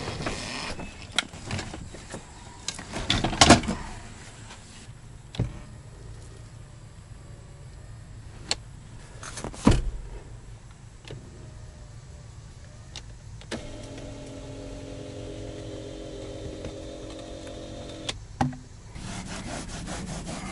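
Knocks and clicks from handling the truck's seats, then an electric bucket seat's motor running steadily for about four and a half seconds in the second half before stopping with a click: the newly wired power seat being moved.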